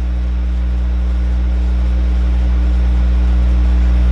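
A loud, steady low hum with several fixed overtones, slowly getting louder.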